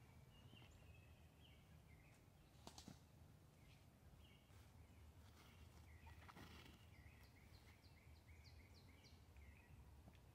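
Near silence with faint birdsong from surrounding trees, including a run of quick repeated chirps in the middle.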